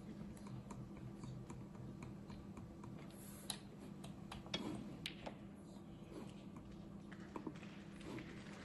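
Scattered light clicks and taps at irregular intervals, the sharpest about three and a half and four and a half seconds in, over a faint steady hum.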